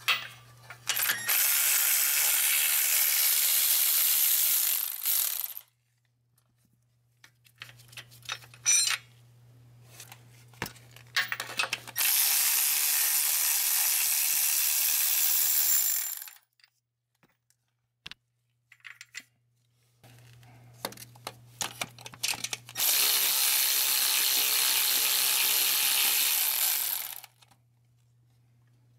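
A power ratchet runs three times, about four seconds each, backing out the transmission's bell housing bolts. Short ratchet clicks and clinks come in between the runs.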